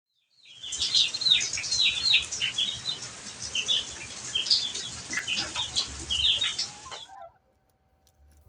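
A flock of chickens clucking and calling: many short calls, several falling in pitch, over a steady hiss. The sound cuts off abruptly about seven seconds in.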